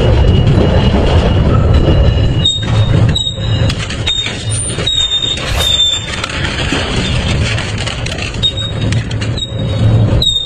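Double-shaft shredder running under load, its steel blades grinding up a pedestal fan with a steady low rumble and crunching of plastic and metal. Short high-pitched metallic squeals come again and again from about two and a half seconds in.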